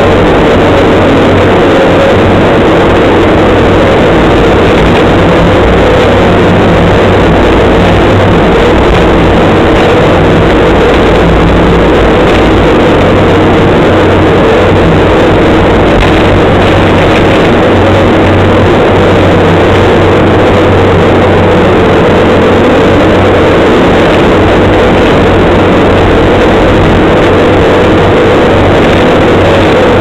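Bobcat skid steer loader's engine running steadily and loud, heard from inside the operator's cab as the machine drives, with a constant hum and a steady higher tone over it.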